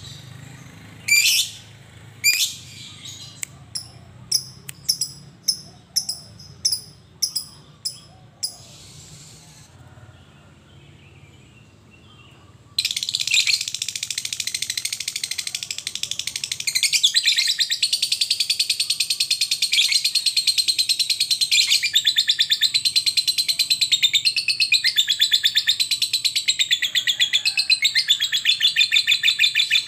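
Lovebird calling: short sharp chirps at about one or two a second, then a pause of a few seconds, then from about halfway through a long unbroken rapid chattering trill, the long 'ngekek' prized in fighter lovebirds.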